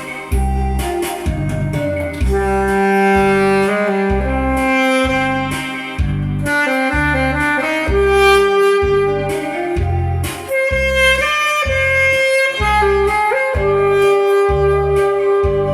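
Saxophone playing a melody of long held notes over a backing track with a steady bass beat.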